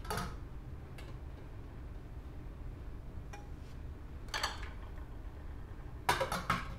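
Aluminium frying pan clinking and tapping against the wire pot supports of a mini folding gas stove as a hand sets it in place and adjusts it: a clink at the start, a few light ticks, a short cluster about four seconds in, then a quick run of clinks near the end.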